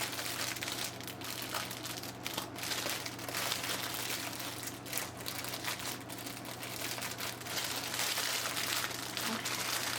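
Small plastic bags of diamond painting drills crinkling and rustling as they are handled and pressed together, with a steady low fan hum underneath.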